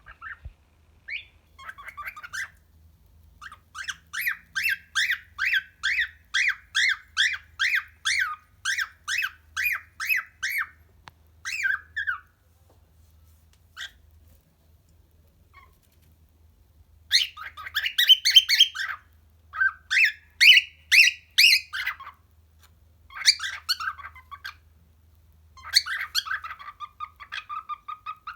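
Pet bird calling: a long run of short, evenly repeated notes, about two a second, then after a pause louder, more varied squawks and whistled calls in short groups.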